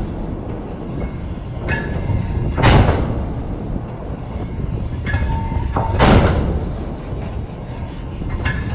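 A destroyer's 5-inch deck gun firing in a steady series: two heavy booms about three and a half seconds apart, each preceded by a short metallic clank from the mount. A steady low rumble lies under it.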